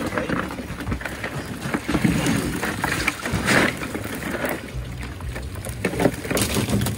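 A cast net full of live bait fish being shaken out into a plastic cooler: fish dropping and flapping against the net, the plastic and each other, in uneven bursts of sharp clicks and slaps over a steady low rumble.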